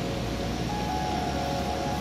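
Background music of sustained held notes over a bass line, the notes changing just under a second in.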